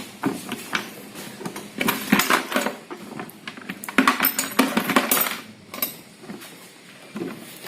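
Metal tools and parts clinking and knocking in irregular clusters as a scooter is being taken apart.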